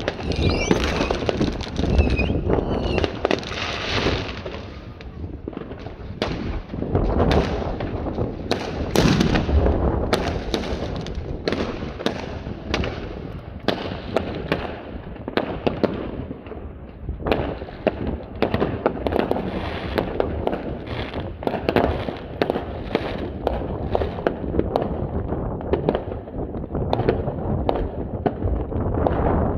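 Fireworks going off in quick succession: a continuous crackle of bursting shells with many sharp bangs, and a few short whistles in the first three seconds.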